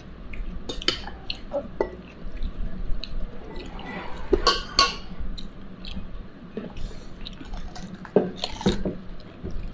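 Eating by hand: chewing close to the microphone, fingers working rice on a plate, and scattered short clicks. A bite into a cucumber slice comes about eight seconds in.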